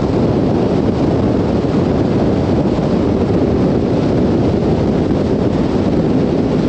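Loud, steady rush of a 35-foot Fountain powerboat running at speed: wind battering the microphone and spray tearing off the hull, with the engines' noise blended in underneath.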